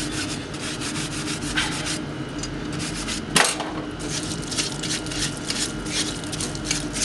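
Stiff-bristled brush scrubbing a rusty hand tool in a wet metal tub, in rapid back-and-forth strokes several times a second. There is one sharp clack of metal about three and a half seconds in.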